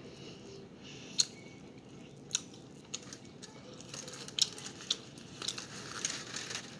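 Close-miked chewing of a mouthful of burrito: wet mouth smacks and clicks, a few sharp ones spaced out at first, growing busier after about four seconds.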